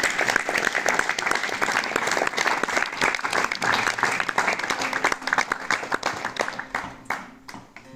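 Audience applauding, a dense patter of many hands that thins out and dies away over the last couple of seconds.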